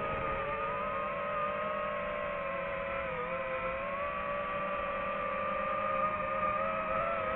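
DJI FPV drone's motors and propellers whining steadily in flight, the pitch wavering slightly with throttle.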